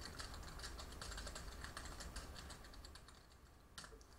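Faint computer keyboard typing: a quick run of keystrokes that stops about three seconds in, followed by a couple of last key clicks near the end.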